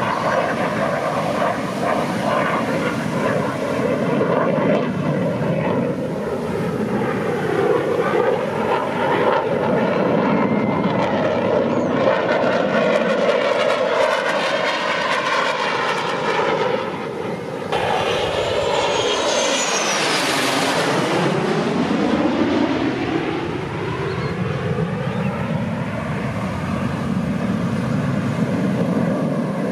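Jet noise from U.S. Air Force Thunderbirds F-16 Fighting Falcons flying past, loud and continuous, with a sweeping whoosh whose pitch bands slide down and back up about twenty seconds in as a jet goes by overhead.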